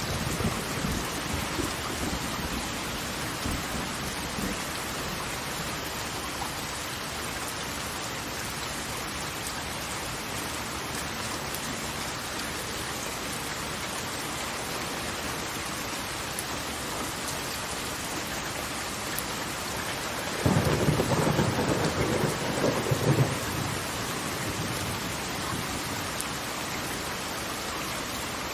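Steady rush of falling water, heavy and even like a downpour. A low rumble sounds in the first few seconds, and a sudden louder deep rumble comes about twenty seconds in and lasts about three seconds.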